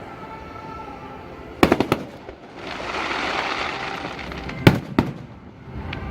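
Fireworks display: a quick cluster of sharp bangs about a second and a half in, then a hissing crackle for a couple of seconds, and two more bangs near the end.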